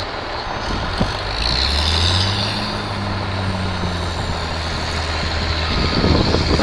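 A heavy vehicle's engine running steadily with a low drone, coming in about a second in, over a broad wash of traffic-like noise.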